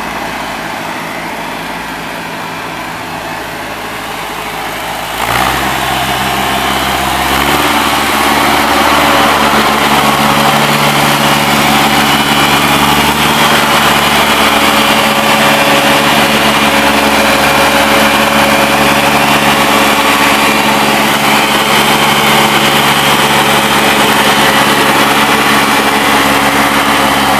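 Ford 4000 farm tractor engine running as the tractor drives. About five seconds in the engine speeds up and gets louder, steps up again a couple of seconds later, then runs steadily at the higher speed.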